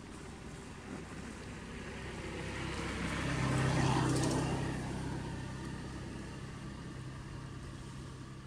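A motor vehicle driving past: an engine sound that grows louder to its loudest about four seconds in, then fades away.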